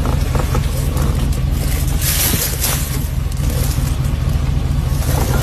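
A loud, steady low rumble under a rushing hiss, starting and stopping abruptly with the clip, like a running motor heard while moving.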